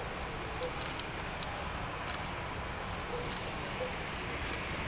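Steady distant roar of a departing Airbus A380's four jet engines as it climbs away, with scattered faint clicks.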